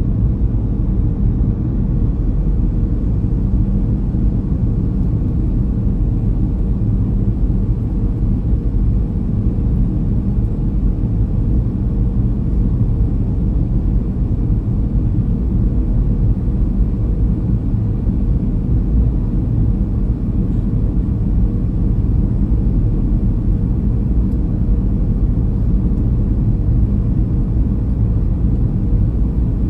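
Steady low rumble of cabin noise inside a Boeing 737-300 in flight, heard over the wing: the jet's CFM56 turbofan engines running, mixed with air rushing past the fuselage.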